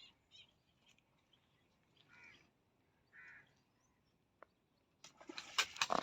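Crows cawing faintly, a few short calls a second or so apart. About five seconds in, a rapid run of sharp clicks starts and grows louder.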